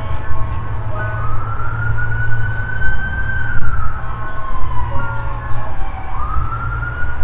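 A siren wailing, its pitch rising slowly, then falling over several seconds and climbing again near the end, over a steady low rumble.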